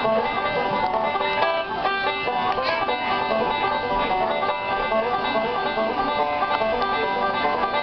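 Instrumental intro music made of quick plucked-string notes at a steady level.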